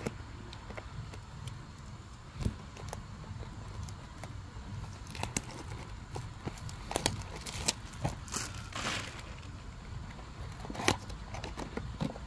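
Hands handling a Pokémon card booster box and its packaging: scattered clicks and taps, with a brief crinkle about nine seconds in, over a steady low hum.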